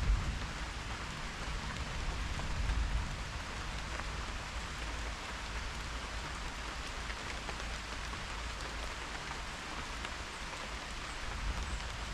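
Steady heavy rain falling, an even hiss of drops on surfaces. A low rumble of distant thunder dies away over the first three seconds.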